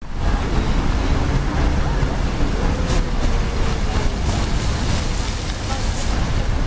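Fountain jets splashing into a shallow pool: a steady rush of falling water.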